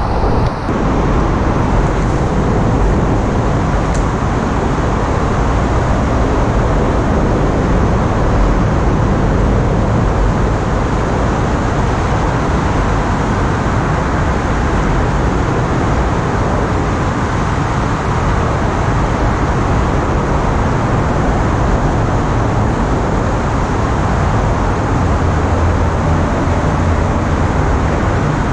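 Steady rumble of road traffic crossing the highway bridge directly overhead.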